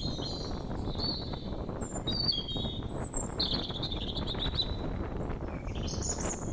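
Birds chirping and twittering, a string of short high calls and trills, over a steady low rumble of noise.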